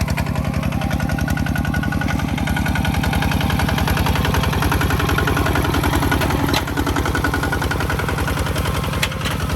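Farm machine's engine running steadily with a fast, even chug. There is a short click about two-thirds of the way through and another near the end.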